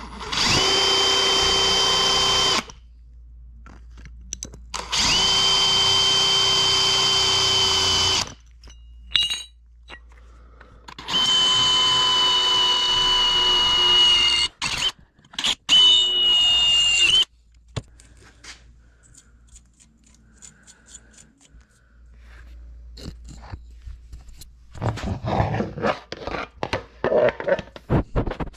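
Electric drill running in four separate runs of about two to three seconds each, with a steady whine, as a twist bit drills through aluminium plate. Quieter clicks and metal handling clatter follow near the end.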